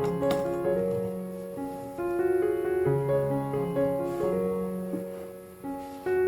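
Soft background piano music, a slow melody of single sustained notes over a low accompaniment, fading briefly near the end before the next phrase begins.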